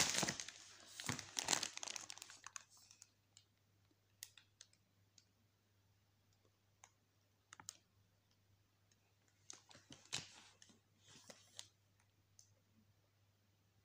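Cosmetics being handled in a pile: plastic wrapping crinkling and compacts and palettes clicking against each other. There is a flurry of rustling at first, then scattered single clicks, and another burst of rustling about ten seconds in.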